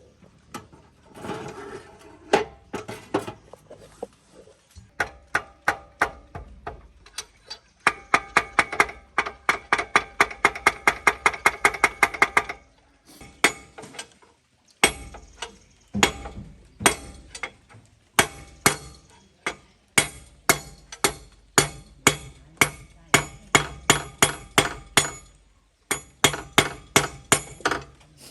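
A hammer striking metal in runs of sharp, ringing blows. There is a fast run of about four to five blows a second in the middle, then steadier blows about two a second.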